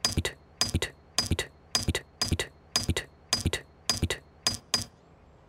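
Cartoon sound effect of a small metal tool tapping a concrete block over and over, about two light clinking taps a second.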